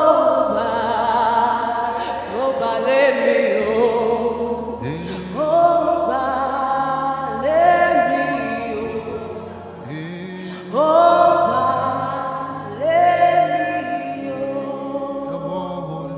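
Gospel worship singing: long held vocal notes with vibrato, a new phrase starting about every two seconds, over steady low sustained chords.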